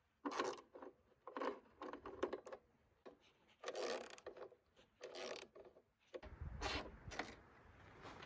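Handling sounds while an hour meter is fitted to a small engine: a series of about a dozen short, irregular rubbing and scraping strokes.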